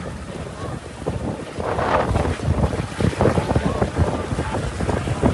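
Storm wind gusting hard across the microphone, a rough rushing roar that surges and eases.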